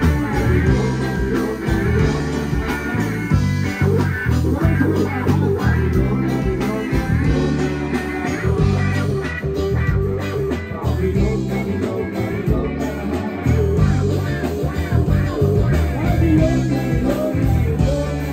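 Live reggae band playing with electric bass, electric guitar, drums and keyboards, the bass heavy and rhythmic, heard from on stage.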